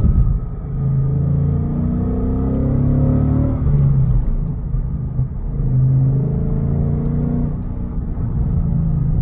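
2016 Mustang GT's 5.0 V8 running through a resonator-deleted exhaust with SLP Loudmouth 2 axle-backs, heard from inside the cabin while driving. The exhaust note rises twice as the car accelerates.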